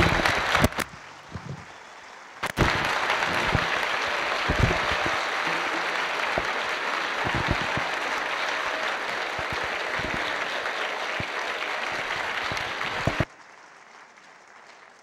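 Audience applauding: the clapping dips briefly about a second in, comes back and carries on steadily, then cuts off suddenly near the end.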